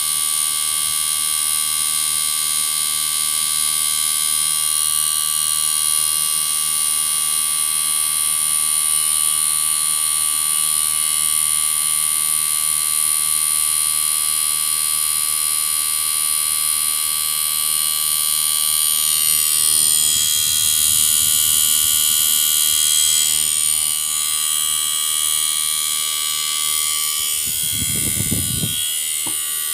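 Panasonic split inverter air conditioner running under test: a steady electrical hum with a high whine of several fixed tones, its compressor now running continuously instead of stopping after a second. A couple of brief low bumps near the end.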